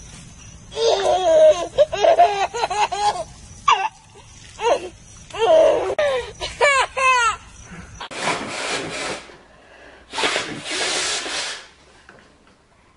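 A small child laughing in repeated high-pitched fits. Later come two rushing hisses of about a second each.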